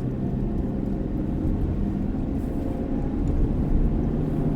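Steady engine and road rumble inside a moving car's cabin, with the windows closed.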